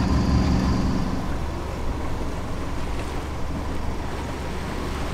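Sailboat's inboard engine running with a steady hum for about a second, then wind and waves rushing past the boat, with wind buffeting the microphone.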